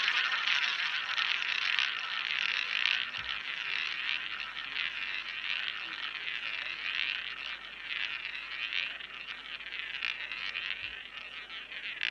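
Roulette ball rolling around the ball track of a spinning wheel: a whirring that swells about once a second and fades as the ball slows.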